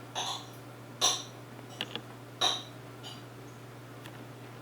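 A pet rats' wire cage creaking and scraping in four short bursts about a second apart, over a steady low hum.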